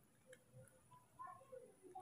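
Near silence, with a few faint clicks and short, faint squeaky tones from a baby macaque being spoon-fed milk.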